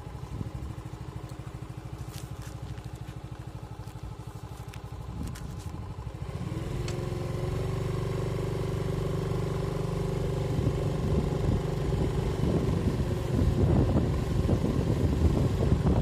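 Motorcycle engine idling with steady low pulses, then throttling up about six seconds in and running louder as it moves off.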